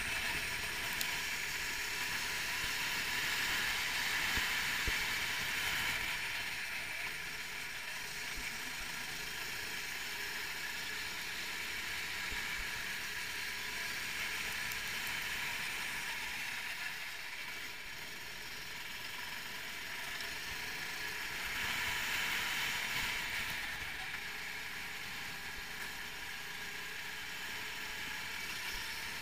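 390cc four-stroke rental kart engine running at racing speed, heard from on board together with the rush of wind. It swells a little in the first few seconds and again about three-quarters of the way through.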